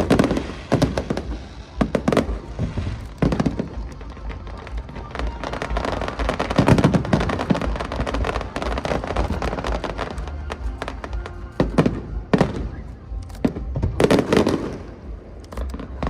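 Fireworks display: shells bursting one after another with booms and crackling, densest around the middle, with music playing alongside.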